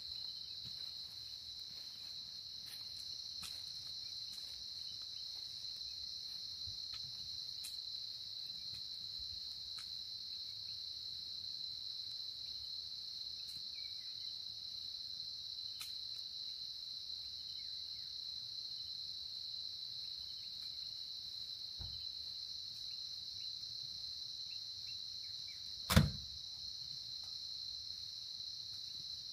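Crickets chirring in a steady, continuous high-pitched chorus. A single loud, sharp knock stands out near the end.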